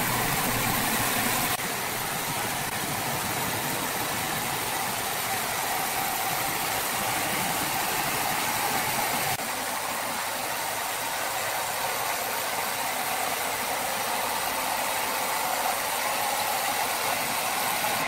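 Sawmill machinery running with a steady, loud mechanical noise that changes abruptly twice, about a second and a half in and about nine seconds in.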